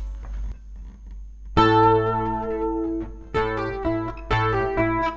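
Capoed acoustic guitar playing the opening chords of a song. After a short quiet start, a chord is struck about a second and a half in and left ringing, with further chords struck near three and a half, four and a half and five seconds in.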